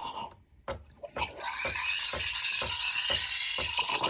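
DeLonghi La Specialista espresso machine's steam wand starting up about a second and a half in, a steady hiss with a regular ticking about twice a second from the machine's pump, as it begins steaming milk for a cappuccino.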